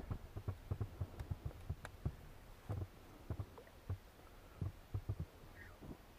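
Irregular low thumps and light knocks of fishing rods and tackle being handled and set down in a fishing boat.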